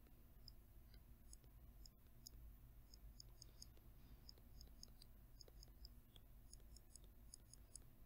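Near silence with many faint, short, high ticks scattered irregularly, a stylus tapping and dragging on a tablet screen while handwriting.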